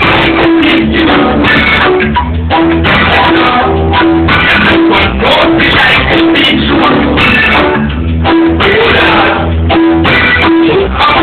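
Live reggae band playing loud, with drums and a repeating bass line.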